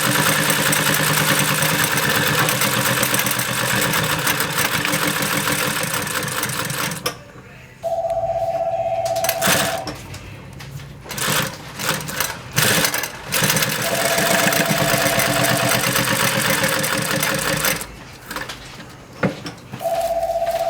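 Consew 206RB-5 walking-foot industrial sewing machine stitching at speed in two runs: the first stops about seven seconds in, the second runs in the latter half, with a few knocks between them. A steady tone lasting about two seconds sounds three times in the pauses, the last near the end.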